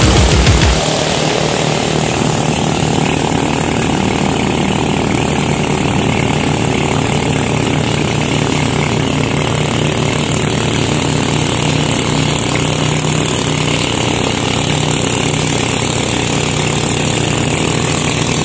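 Engine of a homemade jet ski running steadily at speed: an even, continuous buzz that does not rise or fall.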